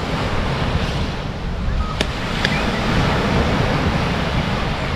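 Steady surf and wind rumbling on the microphone, with two short sharp knocks about two seconds in.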